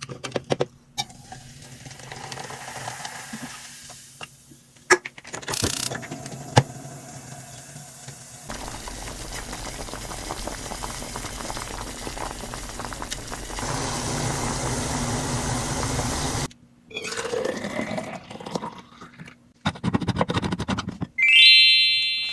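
Coca-Cola being poured and prepared in a series of quick cuts: liquid pouring and fizzing, with a long steady hiss in the middle. A short bright chime rings out near the end.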